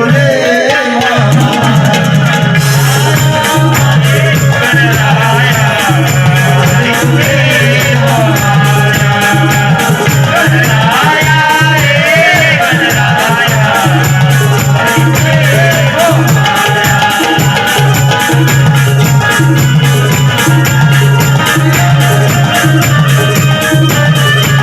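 Marathi devotional folk music: a fast, steady beat of hand drums and jingling rattle, under a wavering melody line.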